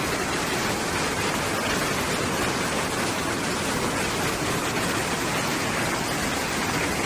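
Fast-flowing flash floodwater rushing steadily, an even noise that holds without a break.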